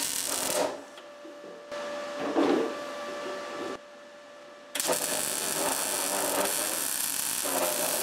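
MIG welder arc crackling while welding a thin-walled steel tube. The arc stops just under a second in, leaving a few quieter seconds with a faint steady hum, and starts up again about five seconds in.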